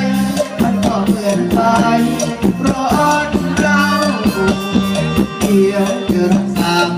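Thai Isan pop song playing: a band with a steady beat, sustained melody notes and shaker-type percussion.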